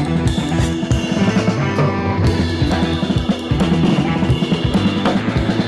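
Background music with a steady drum-kit beat, bass drum and snare.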